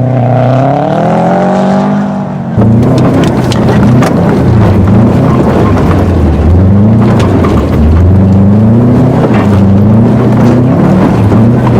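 Car engine revving, rising in pitch, then climbing and dropping back again and again as the car is driven sideways through mud. From about two and a half seconds in it is joined by a loud, dense rushing noise with scattered clicks.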